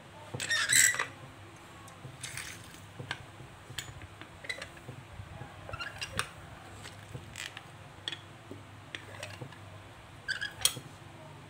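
Metal lever hand-press juicer being worked on pineapple chunks: a loud metal clatter about a second in and again near the end as the press cup and handle are handled, with scattered small clicks and knocks between while the fruit is squeezed.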